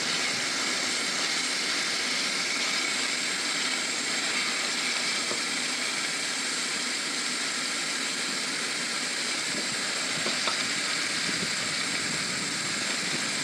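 Onions, garlic and ginger sizzling steadily in hot cooking oil, with one light tick about ten seconds in.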